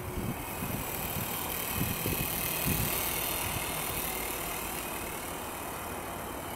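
Small indoor RC helicopter's electric motors and rotors whirring in flight. The high whine shifts in pitch and swells about two to four seconds in, then eases off.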